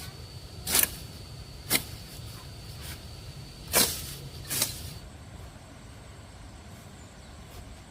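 Four sharp knocks at uneven intervals, the last two close together, over a steady low hum and a thin high tone that both stop about five seconds in.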